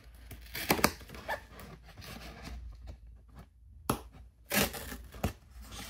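Scissors cutting through a cardboard box flap: several sharp snips and crunches of cardboard, with a brief pause in the middle.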